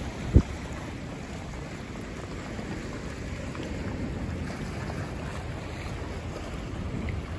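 Wind buffeting the microphone over a rough, choppy sea, with the waves washing below; a loud thump about half a second in.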